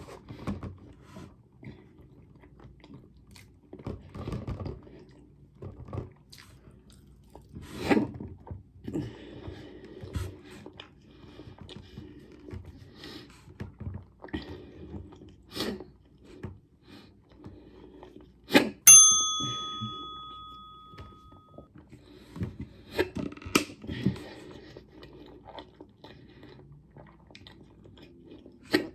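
Close-up chewing and mouth noises of someone working through a mouthful of boiled egg, with scattered small knocks and scrapes. About two-thirds of the way through comes a single sharp, bell-like metallic ring that dies away over a couple of seconds.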